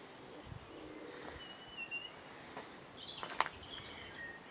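Faint bird chirps and short whistled notes over a quiet background hiss, with a single sharp click about three seconds in.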